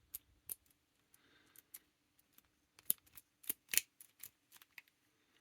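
Irregular small metallic clicks and taps from a disassembled Gerda HSS 531Z disc detainer padlock as its key is turned and worked to draw the core out, the loudest two clicks a little before four seconds in.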